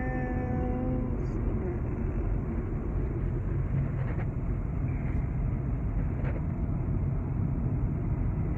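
Steady road and engine noise heard inside a car cruising at highway speed on an interstate. In the first second a voice holds a short, even-pitched note.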